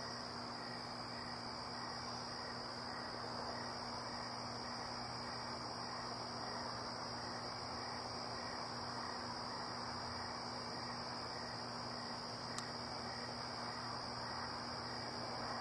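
Night insect chorus: crickets trilling steadily in one high unbroken band, with a fainter, evenly repeating chirp beneath it, over a soft hiss and a faint low hum.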